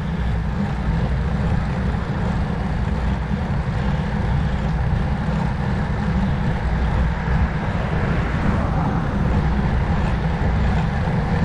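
Wind rushing over the microphone of a rider on the move, heard as a steady, deep rumbling buffet.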